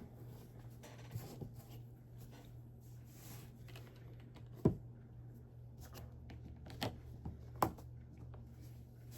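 Plastic Lego pieces being handled and pressed together: scattered light clicks and rattles, the sharpest a little under five seconds in and two more a few seconds later.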